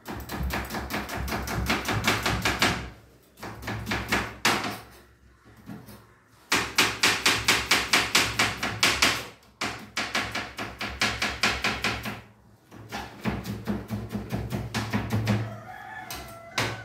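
Kitchen knife finely chopping onion on a plastic cutting board: quick, even knocks of the blade hitting the board, about six a second at the fastest, in several runs broken by short pauses.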